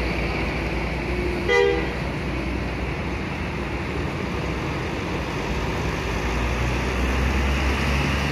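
Diesel engine of a coach bus pulling away and driving past, a steady low rumble that grows louder near the end. One short horn toot about a second and a half in.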